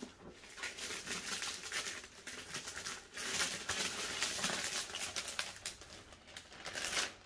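Clear plastic cover film and canvas of a diamond painting kit rustling and crinkling as they are handled and slid flat, an irregular crackle that is busiest through the middle and flares again near the end.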